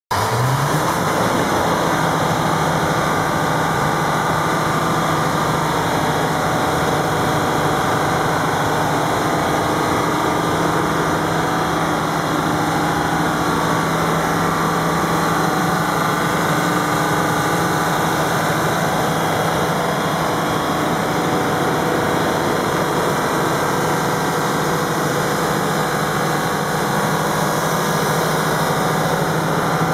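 Detroit Diesel two-stroke V6 diesel engine of a 250 kVA generator set, running steadily at constant speed.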